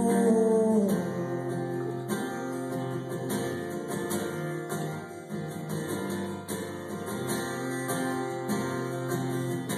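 Acoustic guitar strummed in a steady rhythm as an instrumental break between verses of a song. A held sung note falls away about a second in.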